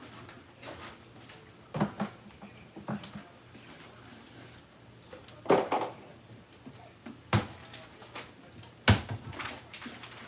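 Kitchen clatter as things are put away: a handful of sharp knocks and bangs, spread out, with the loudest about halfway through and near the end.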